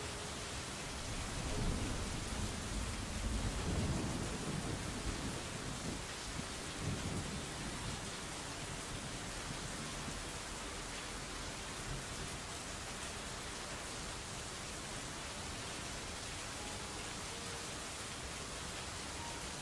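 Steady hiss of rain, with a low rumble of thunder from about two to seven seconds in.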